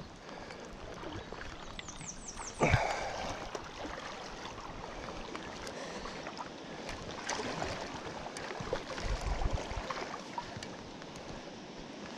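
Flowing, sloshing river water close to the microphone. A sudden loud hit comes a little under three seconds in, and a few low thumps follow later.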